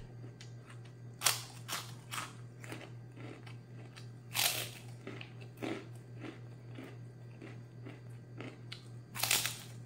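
A large crunchy kerupuk (Indonesian puffed cracker) bitten and chewed close up. There are three loud crunching bites, about a second in, near the middle and near the end, with smaller chewing crunches between them.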